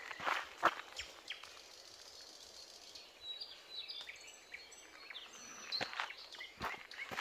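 Footsteps of someone walking outdoors, a few in the first second or so and again near the end, with small birds chirping in between.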